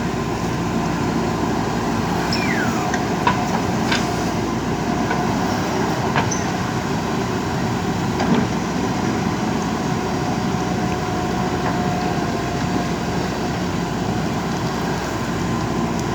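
JCB 3DX backhoe loader's diesel engine running steadily under working load, with a few short sharp clanks.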